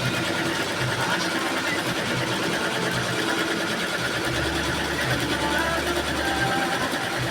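Single-head KQM computerized embroidery machine running steadily, stitching.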